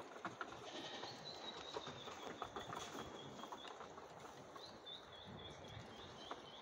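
A bird singing faintly: a thin high whistle held for a couple of seconds, then a quick run of short, repeated high notes. Scattered light clicks and knocks sound underneath.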